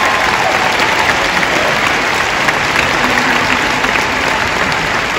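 Large arena crowd applauding, a dense steady clapping that eases slightly toward the end.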